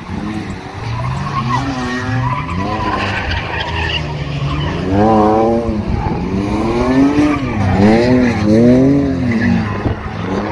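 Lexus IS200's straight-six engine revving up and down repeatedly while the car drifts, with tyres skidding. The revs rise and fall in several sweeps, louder in the second half.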